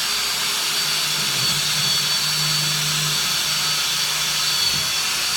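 Power drill running steadily with a high motor whine, its bit boring through a Formica-laminated cabinet door backed by a clamped block of wood. The drill stops right at the end.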